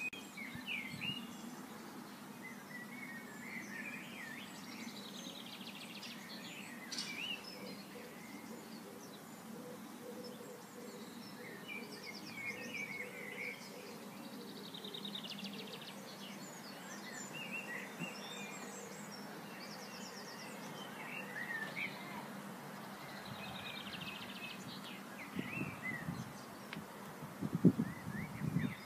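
Garden songbirds chirping and trilling on and off, over a steady low outdoor hum. Near the end come a few low rumbling thumps, one of them loud.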